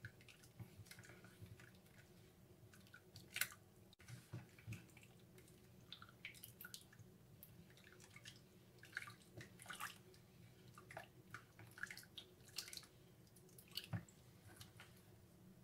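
Spatula stirring dark chocolate into hot cream in a plastic bowl: faint, irregular wet clicks and squelches as the chocolate melts, with one sharper tick a few seconds in.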